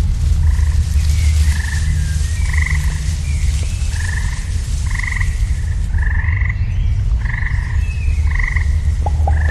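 Frogs croaking in a steady series of short, rasping calls, about one or two a second, played as part of a light show's soundtrack over loudspeakers, over a steady deep low rumble.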